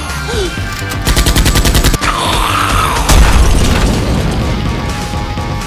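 Action background music with a burst of rapid gunfire sound effects about a second in, then a loud explosion boom just after three seconds that rumbles away.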